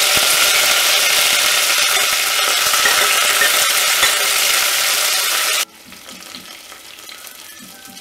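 Fresh curry leaves and mint leaves sizzling and spattering loudly as they hit hot oil and ghee in a stainless steel pressure cooker. The loud sizzle cuts off suddenly about two-thirds of the way through, leaving a much quieter, steady frying sizzle.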